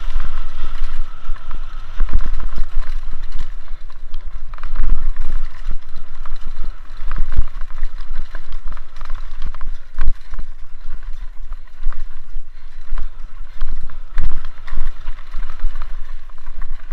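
Mountain bike ridden fast down a rough dirt trail, heard from a camera on the bike or rider. Wind buffets the microphone with a low rumble, while the bike clatters and knocks irregularly as it rattles over roots and rocks.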